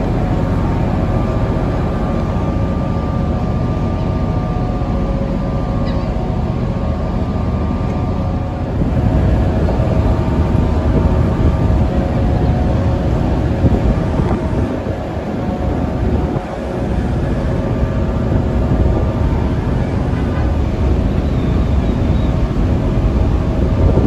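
Car ferry's engines droning steadily, with wind rumbling on the microphone on the open deck; the wind swells about nine seconds in and eases briefly near the middle.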